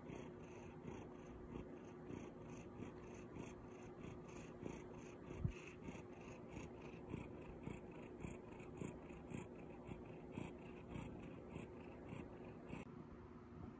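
Orange tabby cat purring faintly in a soft, steady pulse, with one brief low thump about halfway through.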